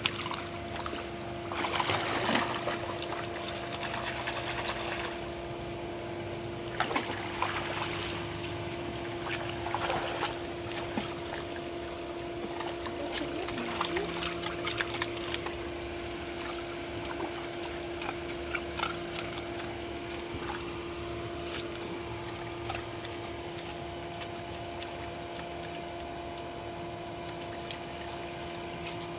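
Shallow pool water splashing and sloshing as two dogs wade and paw about on a submerged ledge, with irregular small splashes. A steady hum runs underneath.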